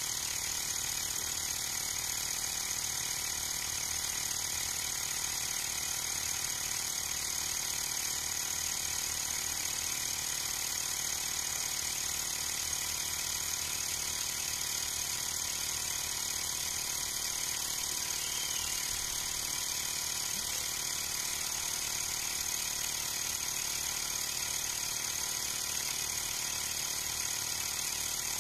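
Xiaomi Mi portable electric air compressor running steadily as it pumps up a car tyre, its small motor and pump holding an even pitch and level with a high whine on top. The tyre pressure is climbing toward a 33 psi target.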